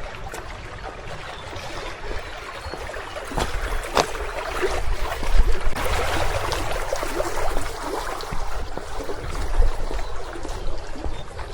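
Running water, such as a stream, swelling louder through the middle and easing off near the end, with scattered footsteps and a low rumble like wind on the microphone.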